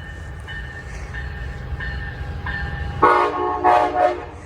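Amtrak passenger train approaching with a low rumble that grows louder, then its locomotive's multi-tone air horn sounds in short, loud blasts from about three seconds in.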